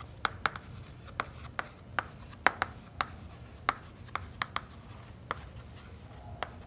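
Chalk writing on a chalkboard: an irregular run of sharp taps and short scratchy strokes, several a second, as the chalk hits and drags across the board to form letters.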